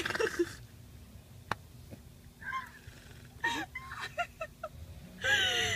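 A young woman, just out of wisdom-teeth surgery, laughing through tears: a soft sob about two and a half seconds in, then a run of short, high, squeaky bursts of laughter, and a long high whimper starting near the end.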